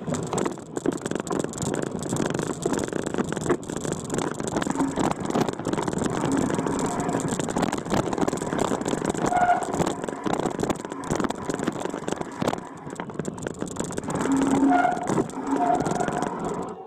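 A vehicle driving over a rough, rocky dirt trail: its engine runs under load amid constant rattling and knocking as it jolts over the ruts and stones.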